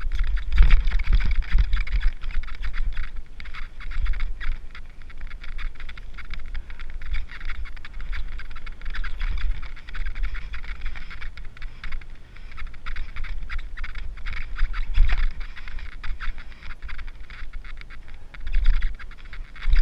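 Mountain bike riding along a dirt trail: a steady crunch and rattle of tyres and bike with fast, irregular clicking, over a heavy rumble of wind on the microphone, with a few harder jolts along the way.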